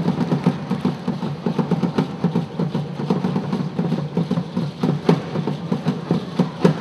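Live hand drums playing a fast, dense, driving rhythm to accompany Afro-Haitian dance, the strokes following one another several times a second without a break.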